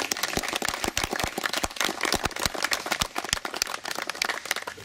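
A small crowd applauding, with many quick, overlapping hand claps that stop near the end.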